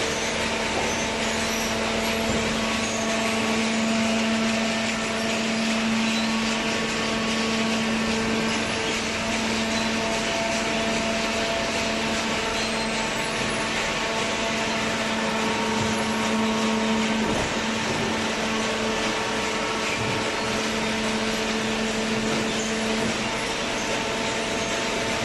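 Hydraulic paper baler running: a steady machine hum over a hiss, with a low whine that holds for long stretches, drops away about two-thirds of the way through, then returns briefly.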